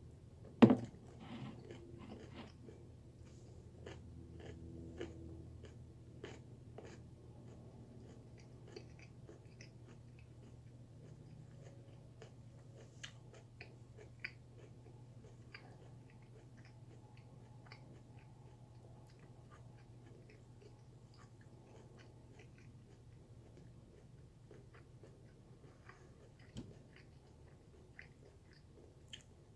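Faint chewing of raw sweet potato: scattered soft crunches and mouth clicks over a low steady hum, with one sharp knock about half a second in.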